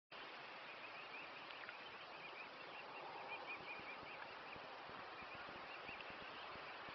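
Mute swan cygnets peeping: a rapid run of short, high cheeps over a steady outdoor hiss, dying away about five seconds in.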